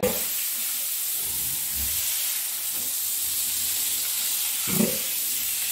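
Water from a hose spraying onto a sow, a steady hiss. There is one short, low sound a little under five seconds in.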